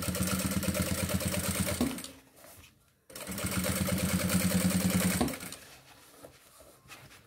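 Industrial sewing machine running in two runs of about two seconds each with a short stop between, topstitching along a zipper through synthetic leather and lining; after the second run it falls quiet apart from faint handling of the material.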